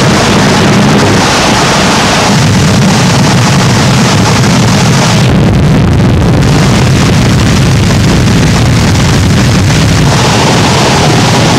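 Harsh noise wall recording: a loud, dense, unbroken wall of static with a heavy low rumble. The texture churns without rhythm, and its top end briefly dulls about five seconds in.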